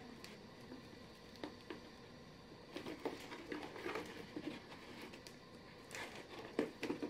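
Hands handling a stiff leather tube bag: faint scattered taps, rubbing and small clicks, bunching together about three seconds in and again near the end.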